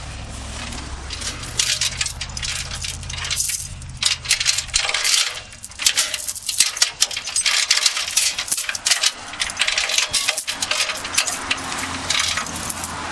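Irregular metallic clinking and rattling, many quick clanks of loose metal hardware being handled during tie-down of the load. A low steady hum runs underneath for the first five seconds or so, then stops.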